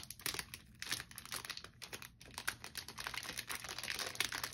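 Packaging of a Pokémon card portfolio being picked and peeled open by fingers: a run of small crinkles and clicks, getting busier about halfway through.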